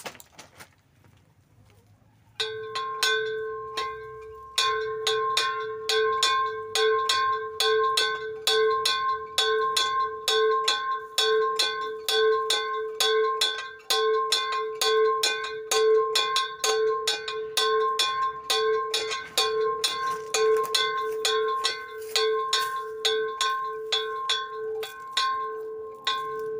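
Small pot-shaped metal bell swung on its frame, its clapper striking in rapid, uneven strokes that ring one steady pitch. It starts about two seconds in.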